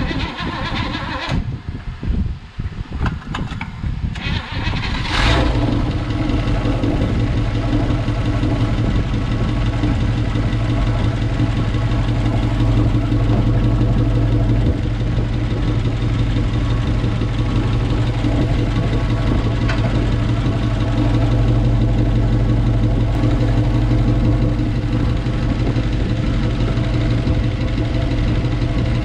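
1957 Chevy Bel Air's V8 being started: it sputters unevenly, catches about five seconds in, then idles steadily.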